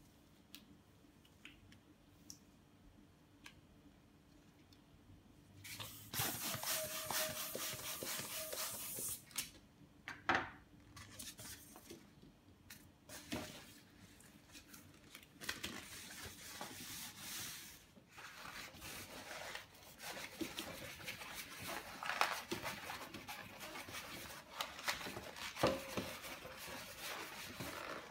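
Green latex 360 modelling balloon being worked by hand: about six seconds in, air rushes into it for roughly three seconds as it is inflated, then the latex squeaks and rubs as the knot is tied and the balloon is twisted into bubbles.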